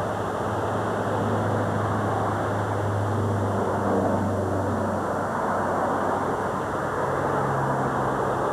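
Car driving along: steady engine hum under a rushing road noise, the hum shifting in pitch a little midway and again near the end.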